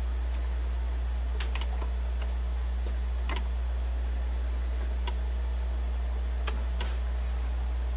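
Steady low electrical hum from a Technics SL-D30 turntable and receiver, with light clicks scattered through it as the automatic tonearm swings over and sets down on the spinning record.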